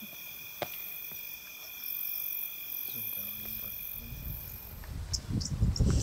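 Night insects, crickets among them, trill steadily on two high tones, with a single sharp click a little after half a second in. Near the end the insects stop and a louder, rough low noise takes over.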